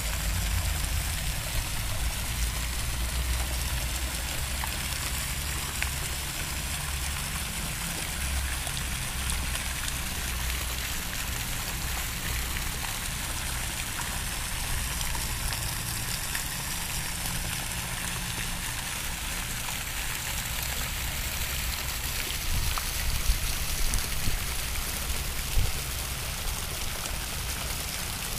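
Courtyard fountain jets splashing into their pool: a steady rush of falling water, with a low rumble underneath and a few short knocks near the end.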